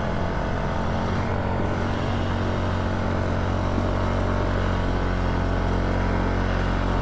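Polaris ATV engine running steadily under load in low-range four-wheel drive as the quad climbs a steep trail.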